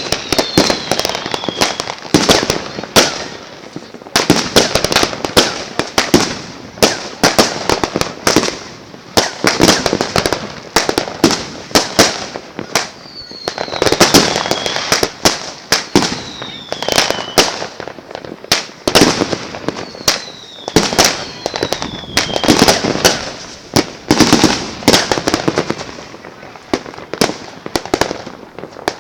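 New Year's Eve fireworks and firecrackers going off: a near-continuous barrage of sharp, loud bangs and crackles, with several high whistles gliding down in pitch.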